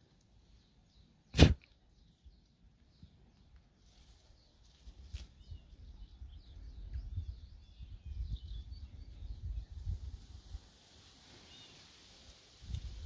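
Faint birdsong, short chirps throughout, under a single sharp knock about a second and a half in. Uneven low rumbling from about five to ten seconds in.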